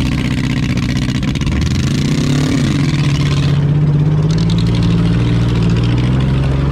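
Demolition derby car's engine running hard, its pitch rising and falling once about two seconds in, then holding steady. A harsh hiss over the engine stops about three and a half seconds in.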